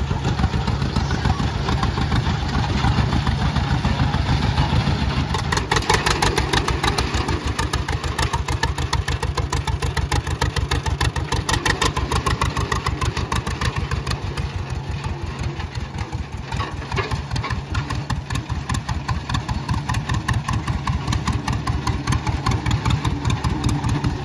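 1929 John Deere GP's two-cylinder four-stroke side-valve engine, burning kerosene, running with a steady train of evenly spaced exhaust beats as the tractor drives.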